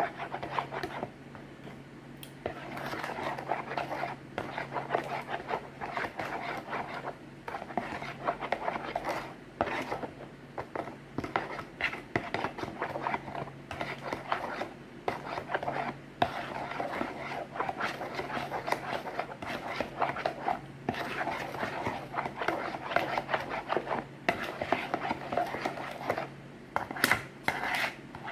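A spoon scraping and stirring a mix in a bowl: a continuous run of scratchy strokes over a steady low hum.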